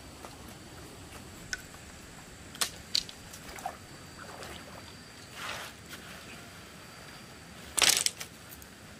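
Light handling noises: scattered small clicks and knocks, a soft rustle about halfway through, and a short, louder rustle near the end.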